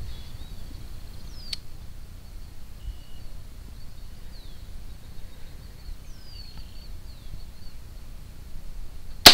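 Quiet open-air background with a few short, falling bird chirps and a faint steady high tone, then a single sharp rifle shot near the end, which is the loudest sound by far.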